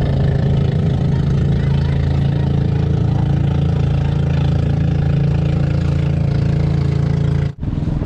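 Boat engine running steadily at a low idle, an even low drone, broken off briefly near the end.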